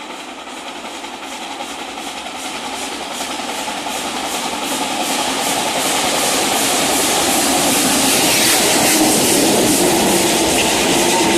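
ČSD class 475.1 steam locomotive 475 111 working up a grade, its rhythmic exhaust beats growing steadily louder as it approaches and passes. Near the end the coaches roll by with clickety-clack and a steady whine from the wheels.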